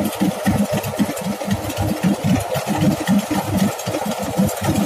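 Rice combine harvester's engine running steadily under load as the machine drives forward, cutting standing rice.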